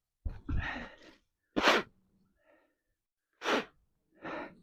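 A person sighing, then huffing out three short, sharp breaths with pauses between, frustrated and out of breath.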